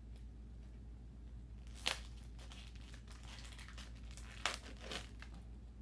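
Plastic wrapper on a pack of playing cards being crinkled and torn open by hand, in irregular crackles with sharp louder rips about two seconds in and again around four and a half seconds.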